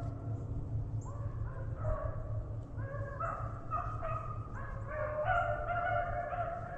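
A pack of beagles baying as they run a swamp rabbit's track, several dogs' long, drawn-out howls overlapping one another, over a steady low rumble.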